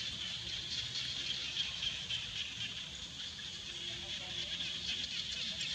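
A steady, high-pitched drone of insects calling in chorus.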